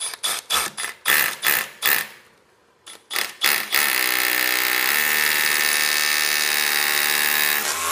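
Milwaukee SDS Plus rotary hammer drilling into a cinder-block wall in hammer mode. It starts with a string of short bursts, pauses briefly, then runs steadily through the block for about four seconds.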